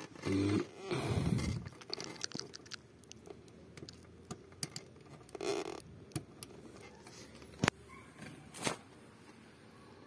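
Flat screwdriver scraping and clicking against the small plastic wiring connector of a car door-jamb switch as its locking tab is pried open, with a few sharp clicks, two of them standing out near the end. In the first two seconds, two louder, low, short sounds.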